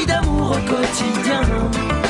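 Recorded music playing: a song's full band mix.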